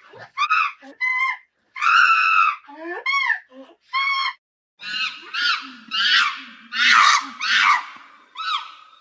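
Ape screams in the style of a chimpanzee: short high-pitched arching calls at first, then from about halfway a faster, harsher run of screams that peaks and tails off.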